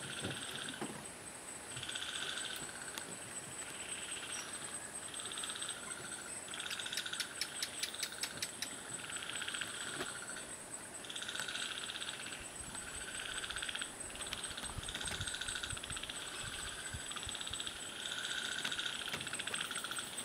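Natural outdoor ambience of calling creatures: a trilling call repeats about once a second over a steady, high-pitched whine. A quick run of faint clicks comes about halfway through.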